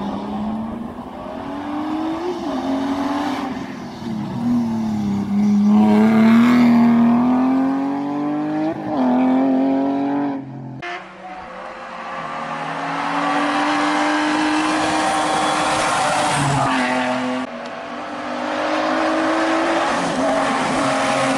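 Historic rally car engine revving hard as the car accelerates toward and past the listener, its pitch climbing and then dropping at each gear change. The sound cuts abruptly twice, about halfway through and again later, where a different pass begins.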